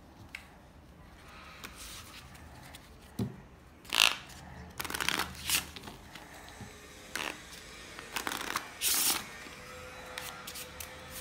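A deck of playing cards being shuffled by hand: a series of short riffling, rustling bursts, the loudest about four seconds in.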